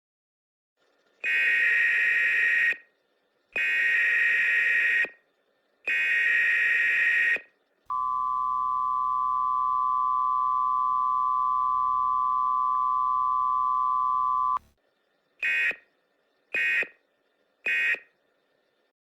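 American Emergency Alert System signal sped up to 1.2x, so slightly higher in pitch: three long electronic data bursts of the header, then the steady two-tone attention signal held for about seven seconds, then three short end-of-message bursts.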